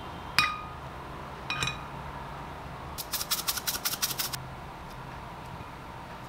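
Two light clinks on a ceramic bowl, each ringing briefly, then a quick patter of crisp ticks lasting about a second and a half as sesame seeds are sprinkled over fried rice in the bowl. A faint steady hum sits underneath.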